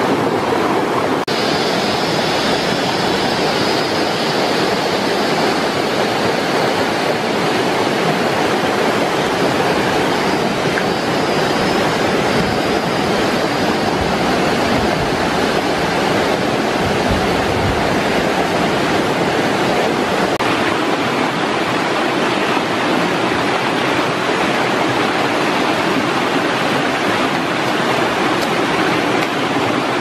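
Mountain stream and small waterfall rushing over rocks: a loud, steady rush of water.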